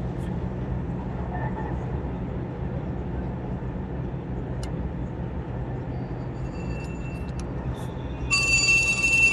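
Dubai Metro train running between stations, heard from inside the car: a steady low rumble and hum. About eight seconds in, a short electronic tone sounds over it for about a second.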